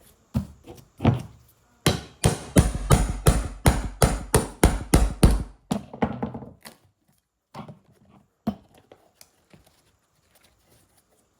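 Hammering on wooden framing: a few single blows, then about a dozen quick strikes over three or four seconds, then two more blows.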